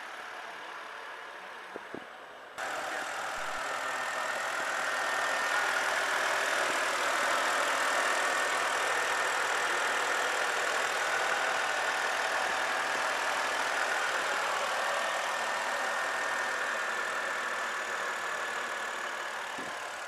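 2009 BMW 323i's 2.5-litre inline-six engine idling steadily, heard up close under the open hood; it gets louder about two and a half seconds in, after a couple of light clicks.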